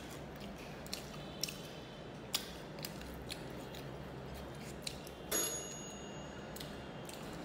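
Close chewing of crispy fried small fish, bones and all: scattered sharp crunches and mouth clicks, with a short breath about five seconds in.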